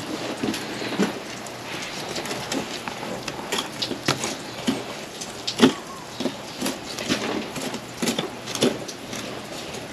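Fillet knife cutting the flesh of a large Pacific halibut away from its bony frame: wet slicing with irregular clicks and scrapes as the blade rides over the bones. The sharpest click comes a little past halfway.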